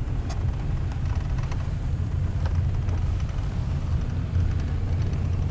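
Steady low rumble of a car's engine and tyres heard from inside the cabin while driving slowly, with a few faint clicks.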